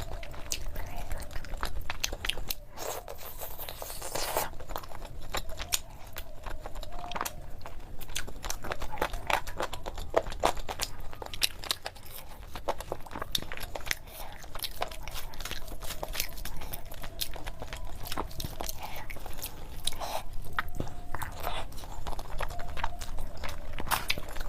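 Close-miked eating: a person chewing and biting food, with crunching and many short mouth clicks.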